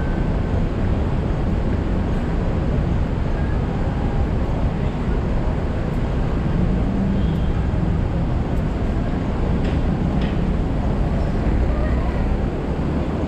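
Steady city street noise of traffic and passers-by, heard from the top deck of a double-decker tram standing still at a red signal, with faint voices in the mix.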